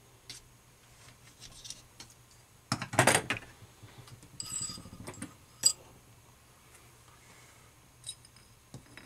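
Small steel transmission parts (gears, snap rings and washers) clinking and scraping as they are worked off a gear shaft with hand tools: scattered sharp clicks, with a louder burst of metal noise about three seconds in and a short ringing clatter a little after.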